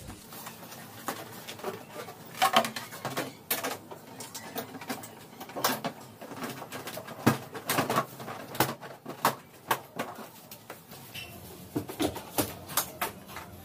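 Irregular clicks, knocks and rustles of the camera being handled and moved about, with no engine running.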